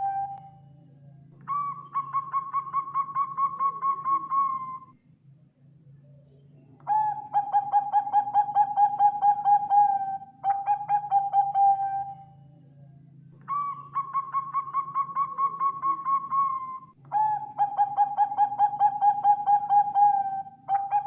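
Zebra dove (perkutut) cooing: about six phrases, each a few seconds of rapid pulsing coo notes held at one pitch, some phrases a little higher than others. A faint steady low hum runs underneath.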